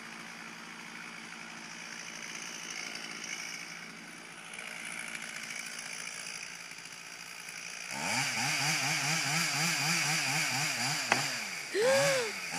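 Chainsaw running while cutting into a leaning tree, faint at first, then louder from about eight seconds in, its engine pitch wavering up and down about three times a second as it works through the wood. There is a single sharp click near eleven seconds.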